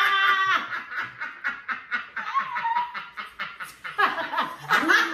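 Three women laughing hard together, a quick run of rapid laughs with some high, gliding squeals.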